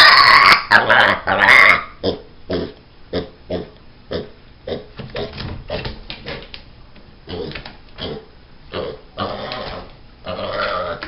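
Angry pig squealing loudly for about two seconds, then a run of short grunts at two or three a second, with two longer squealing calls near the end. A pig makes these sounds when it is worked up because it isn't getting what it wants.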